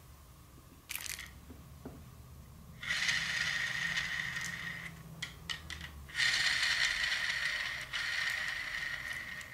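Arrow shaft spinning on an arrow-spinner tool, giving a steady whirring hum. It is spun twice, once about three seconds in for two seconds, then again about six seconds in. This is a broadhead spin test to see whether a Slick Trick Standard broadhead spins true.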